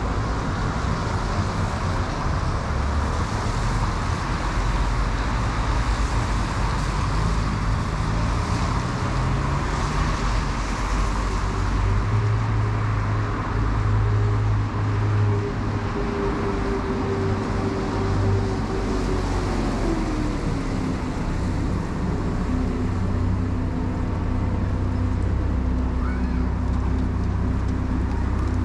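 City street traffic on rain-wet roads: cars passing with tyre hiss and engine hum. One engine rises in pitch about eight seconds in and another falls away about twenty seconds in.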